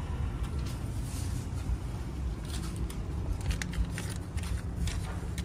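Plastic trash bag crinkling and rustling as rubbish is gathered out of a car's footwell, in quick bursts over the second half, over a steady low rumble.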